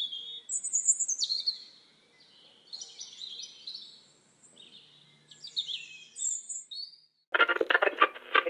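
Small songbirds singing in quick chirps and trills. About seven seconds in, loud music starts and becomes the loudest sound.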